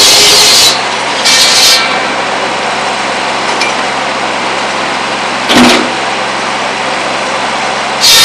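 Tractor-driven buzz saw finishing a cut through pole wood. Then the Kubota B7100's diesel engine and the free-spinning saw blade run steadily between cuts, broken by two brief louder bursts. The blade bites into the next stick near the end.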